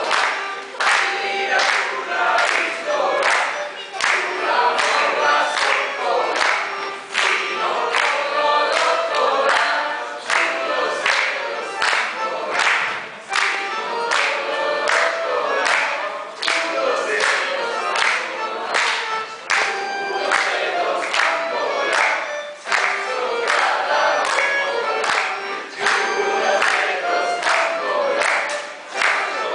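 A school choir singing in unison for a kolo folk dance, with the dancers' steps stamping on the wooden floor in a steady beat of about two a second.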